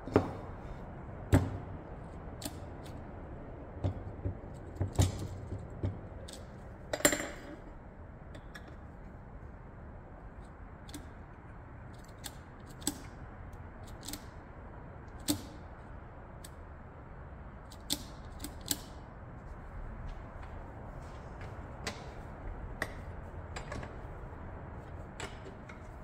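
Irregular sharp clicks and knocks, the loudest within the first eight seconds, over a steady low hum.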